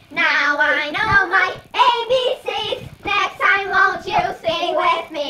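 Children singing a song, phrase after phrase with short breaks between them.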